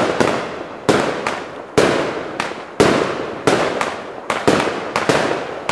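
Aerial fireworks heard at close range from the firing position: a rapid series of sharp bangs, about two a second, each trailing off before the next.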